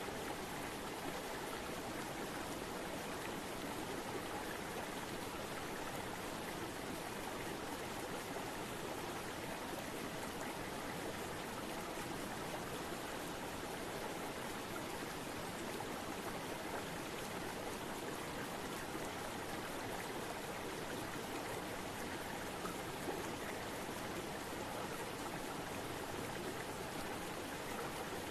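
River water rushing steadily, an even wash of sound without breaks.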